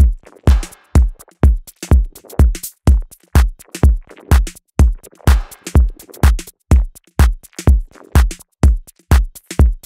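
Techno track with a steady four-on-the-floor drum-machine kick, about two beats a second, and hi-hats ticking between the kicks. A synth swell rises under the beat twice.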